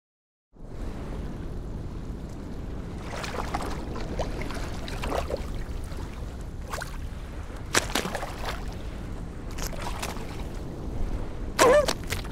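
Cartoon polar ambience of steady wind and sea over ice, coming in about half a second in, with a few short sound effects on top. Near the end a short, wavering vocal sound from a cartoon seal is the loudest moment.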